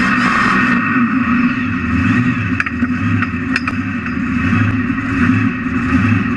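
A 2,600-horsepower mega mud truck's engine running steadily, heard from inside the cab, with a few sharp clicks about three seconds in.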